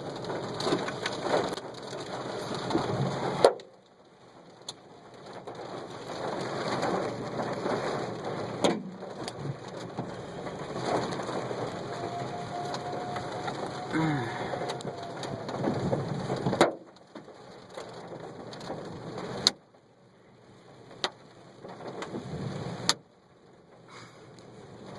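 Hail and rain pelting a car's roof and windshield: a steady hiss with sharp knocks of single hailstones striking. The sound drops out abruptly several times.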